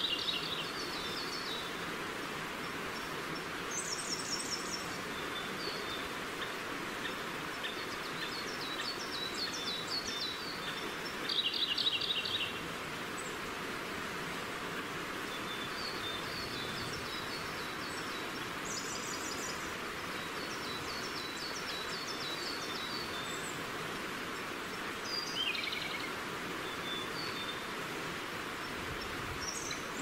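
A stream running steadily, with small birds singing short, high trilled phrases over it every few seconds.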